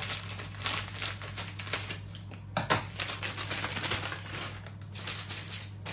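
Rapid, irregular clicks and taps of kitchen food preparation, a few a second, with one sharper knock almost three seconds in, over a steady low hum.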